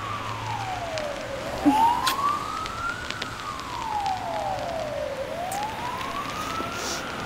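Emergency-vehicle siren wailing, its pitch slowly rising and falling about every four seconds, two full cycles, over a steady hiss. A brief sharp click stands out about two seconds in.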